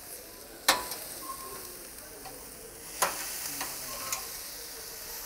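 Pork and pineapple sizzling on a Campingaz RBS gas barbecue grill, a steady high hiss. A metal grill fork clicks against the grate twice, under a second in and at about three seconds.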